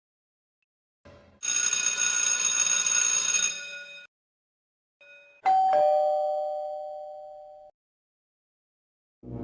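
A bright metallic ringing with many high overtones lasts about three seconds. After a short blip, a doorbell plays its two-tone ding-dong, a higher note falling to a lower one, and fades out.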